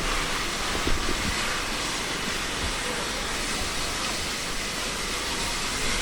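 Steady, loud hiss from a train at the station, with a few low knocks about a second in.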